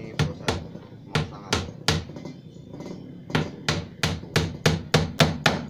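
Hammer driving nails by hand into the plywood top of a subwoofer box. There are two groups of three spaced blows, then after a short pause a faster run of about nine strikes, roughly three a second.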